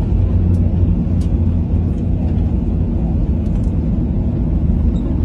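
Jet airliner cabin noise as the plane taxis on the ground: a steady low rumble of the engines heard from inside the cabin.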